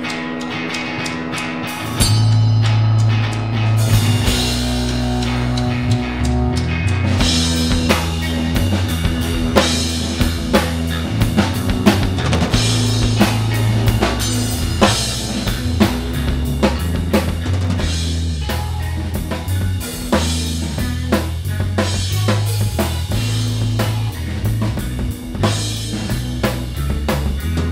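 Live instrumental rock band: electric guitar alone at first, then about two seconds in the bass guitar and drum kit come in together, with bass drum and snare hits keeping a steady beat.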